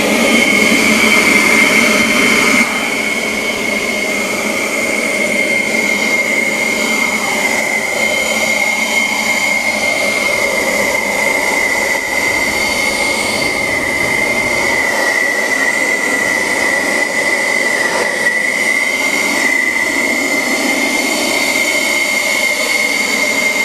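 KM Grand LR-BL570 cordless battery blower running steadily, blowing sawdust off the ground. It gives a steady high fan whine over the rush of air, a little louder for the first two or three seconds.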